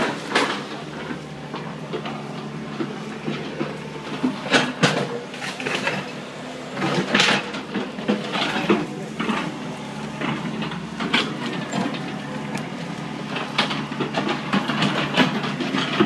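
Hitachi hydraulic excavator's diesel engine running steadily, with repeated sharp clanks and knocks from the machine as it works.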